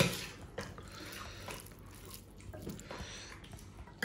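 A sharp knock at the start, then scattered light clinks of dishes and serving utensils, with liquid sounds of food or water being handled at the meal.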